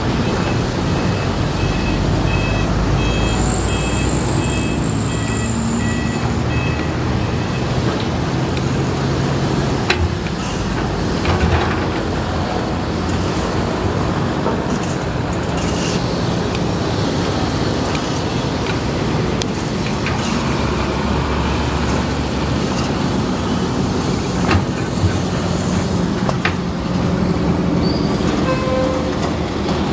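Matador ME210LC-1 excavator's diesel engine running steadily under hydraulic load while it digs, with a few sharp knocks as the bucket strikes the soil and the old sewer pipe.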